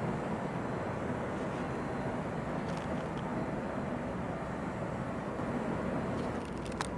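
Steady low rumble of vessel engines from the ship and its assisting tug moving through the harbor. A few faint high ticks are heard midway, and a sharp click comes near the end.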